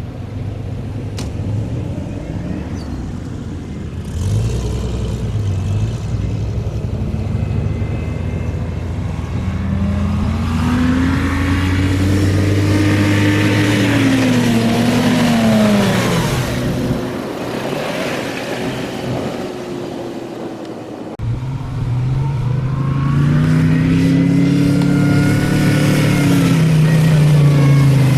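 Four-wheel-drive vehicle's engine running and revving under load, its pitch climbing and falling twice: once around the middle and again near the end, after a brief drop.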